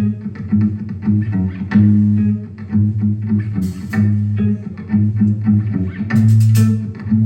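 Live rock band playing: bass guitar notes under picked electric guitar, with a crashing hit about three and a half seconds in and another about six seconds in.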